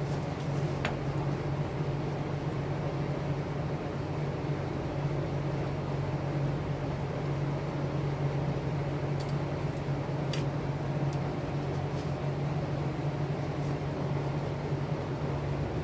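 A steady low machine hum runs throughout, with a few faint light clicks as the drum brake shoes and hardware are handled.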